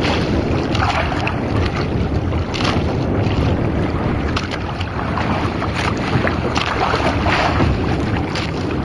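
Wind rushing over the microphone with sea water washing against a small wooden outrigger boat: a steady noisy rush with irregular brief splashes and gusts, and no engine running.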